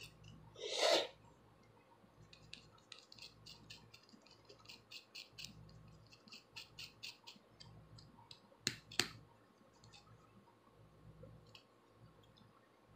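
Rat-tail comb tip and long acrylic fingernails scratching over a dry, flaking scalp as dandruff is lifted: light, quick scratchy strokes, about four or five a second, with a louder brief scrape about a second in and two sharp clicks about two-thirds of the way through.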